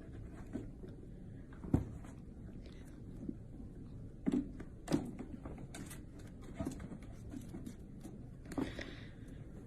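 Scattered thumps and scuffles of cats play-fighting, the sharpest about two seconds in, a couple more around the middle and another near the end, over a low steady background hum.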